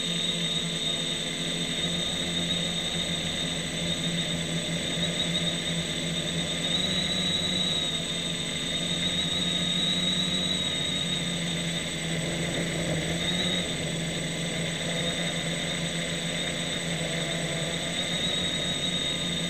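Self-built Aeroquad quadcopter's electric motors and propellers whining steadily in flight, heard from a camera mounted on the frame. The pitch of the whine wavers a little as the motor speeds change.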